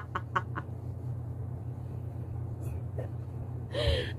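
A few quick, light hand claps from a toddler, about five a second, fading out within the first half second. Then only a steady low room hum, with a brief faint breathy sound near the end.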